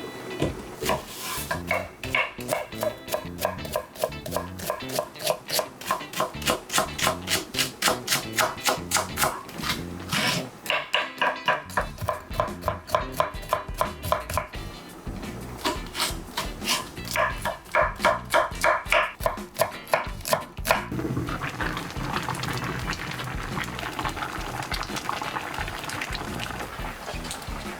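Kitchen knife chopping on a cutting board in quick, regular strokes, about three to four a second, stopping about twenty seconds in. It gives way to the steady hiss and bubbling of the braise simmering in the pot.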